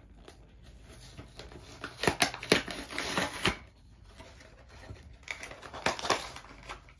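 Stiff clear plastic blister packaging crackling and clicking as it is handled and pried open, in two bouts: about two seconds in, and again near the end.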